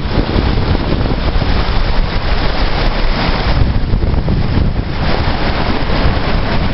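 Wind buffeting the microphone, with a heavy low rumble, over the steady wash of ocean surf on a beach.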